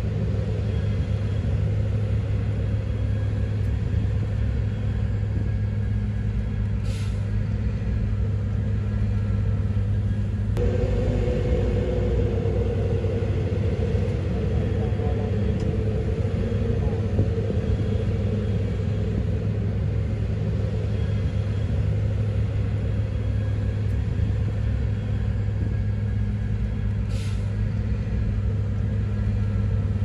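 Heavy diesel machinery, a dump truck and a wheel loader, running with a steady low rumble; about a third of the way in a higher hum joins as the truck's bed begins to tip. Two short air hisses, one early and one near the end.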